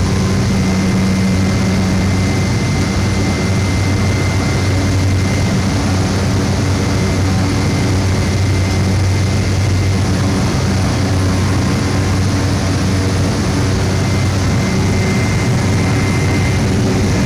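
Cabin drone of a Cessna 208 Grand Caravan's single Pratt & Whitney PT6A turboprop engine and propeller at climb power after takeoff: a steady, loud hum with a low propeller tone and a thin high whine over it.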